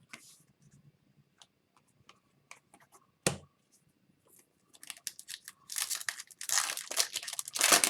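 Foil wrapper of an Upper Deck Series 2 hockey card pack being torn open and crinkled, with scattered small clicks and one sharp knock a few seconds in. The tearing and crinkling turns dense during the second half.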